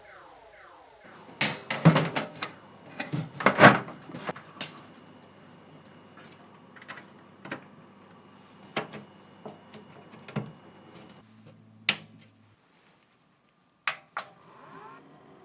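Clicks and knocks of hard objects being handled: a quick clatter of several knocks in the first few seconds, then single clicks every second or so. The sound cuts out completely for about a second near the end.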